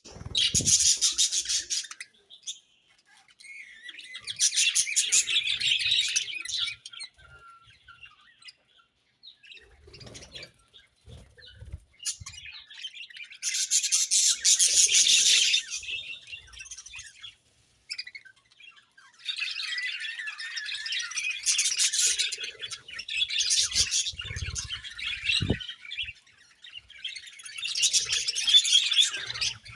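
A flock of budgerigars chirping and warbling in bouts of busy chatter a few seconds long, with quieter gaps between them.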